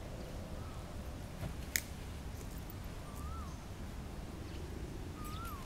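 Outdoor background with a steady low rumble, one sharp click about two seconds in, and three faint, short, whistled chirps that rise and then fall in pitch, spaced a couple of seconds apart.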